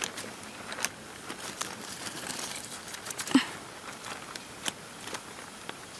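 Dry leaf litter rustling and crackling as a hand moves through it, with scattered small clicks and one sharper snap about three and a half seconds in.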